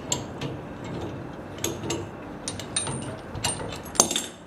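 Irregular mechanical clicks and clatter from hands working the screen-repair equipment, with a sharper click about four seconds in.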